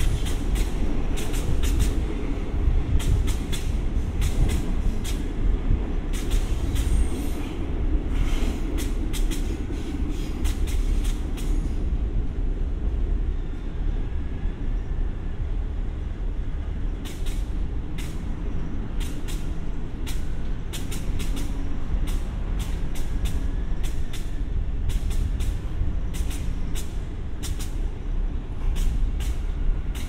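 KiHa 52 diesel railcar's twin engines idling while the car stands still: a steady low rumble, with scattered sharp clicks.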